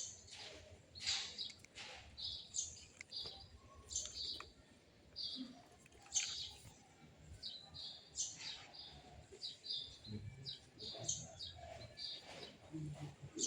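Small birds chirping: short, high calls repeat throughout, some dropping sharply in pitch.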